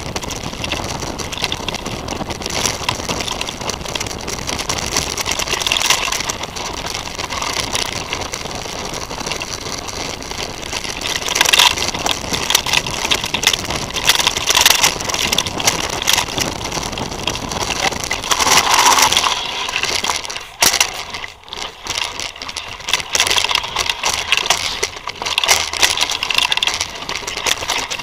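Titus FTM mountain bike rolling fast over a rough forest dirt trail: steady rush of tyre and wind noise with frequent rattles and knocks as the bike jolts over the ground.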